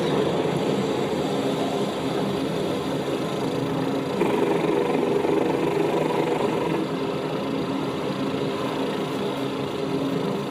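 Film soundtrack of large early multi-engine biplanes flying: a steady droning engine noise, made by human voices imitating the engines as all of this film's sound effects are, a little louder about four seconds in.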